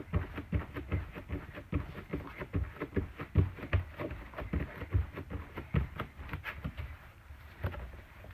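Human heartbeat picked up at the chest after squats and jumps: a quick run of low lub-dub thumps, softening a little near the end.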